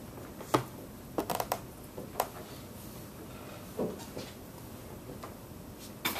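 Dry-erase marker writing on a whiteboard: a run of sharp taps and short scratchy strokes between about half a second and two seconds in, then a few softer strokes, over quiet room tone.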